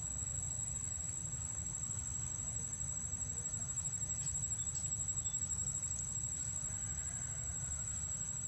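Outdoor ambience: a steady low rumble with a thin, steady high-pitched whine over it and a few faint ticks. No clear monkey calls.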